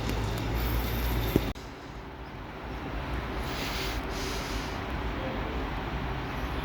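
Passing train: low rumble and rail noise that cuts off abruptly about a second and a half in, then a quieter, steady run of train noise.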